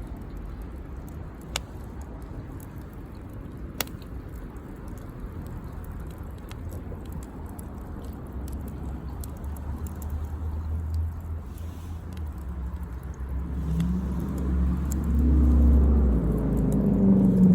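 A motor vehicle's engine approaching: a low rumble that grows steadily louder, with its engine hum rising over the last few seconds. Two sharp crackles sound early, in the first four seconds.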